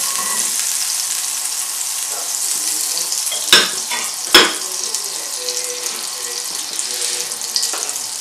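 Butter sizzling as it melts and foams in a hot nonstick frying pan, a steady hiss. Two sharp clicks about a second apart near the middle.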